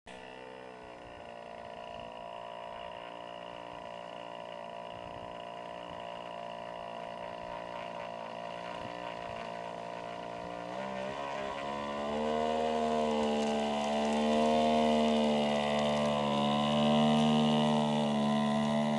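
Engine and propeller of a radio-controlled Beaver model floatplane running on the water: a steady buzzing note at taxi speed that slowly grows louder as it approaches, then throttled up about twelve seconds in to a higher, louder note as it skims across the lake.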